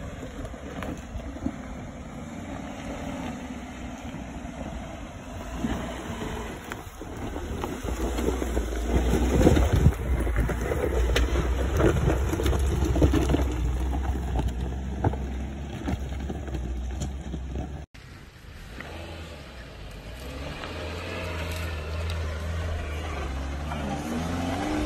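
Suzuki Jimny JB74's 1.5-litre four-cylinder engine running at low revs as the 4x4 crawls over a rocky track, with a heavy low rumble and tyres crunching and knocking over stones. After a sudden cut about 18 seconds in, the engine pulls up a steep dirt bank, its revs rising near the end.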